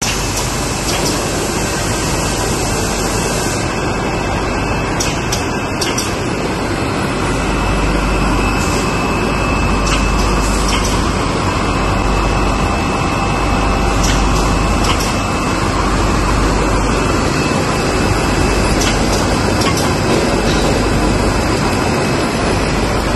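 Paper coffee filter bag making machine running at production speed: a steady dense mechanical clatter with a faint constant high whine and scattered short clicks.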